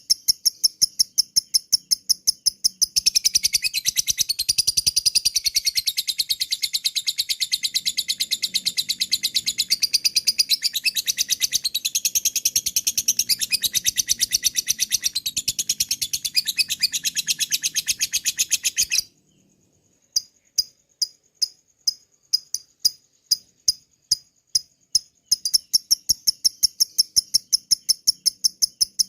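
Lovebird chattering in its long 'ngekek' call: a fast string of sharp, high chirps that turns into a dense unbroken run and stops abruptly about two-thirds of the way in. After a brief silence, spaced chirps start again and quicken.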